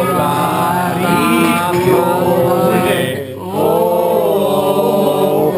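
Several men singing a chant-like song together in long, held notes, with a brief pause for breath about three seconds in.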